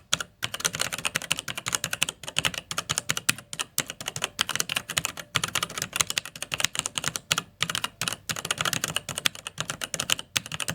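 Computer keyboard typed on fast: a dense, uneven run of key clicks with a few short pauses.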